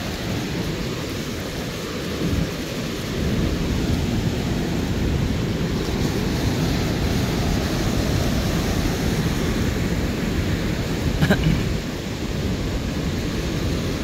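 Heavy surf breaking and washing up the beach, mixed with wind rumbling on the microphone; the noise swells a little about three or four seconds in and stays steady.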